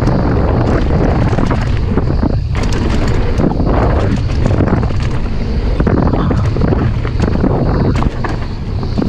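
Wind buffeting the action camera's microphone and the knobby tyres of a Specialized Stumpjumper alloy 29er mountain bike rolling fast over a packed-dirt trail. The bike rattles and knocks continually over bumps.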